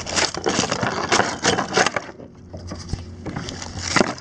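Plastic bag crinkling and rustling as it is handled: a dense run of crackles for about two seconds, quieter for a moment, then a sharp crackle near the end.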